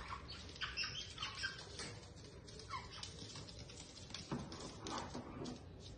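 A parrot making short, irregular chirps and calls, a few falling in pitch, with scattered brief clicks and rustles.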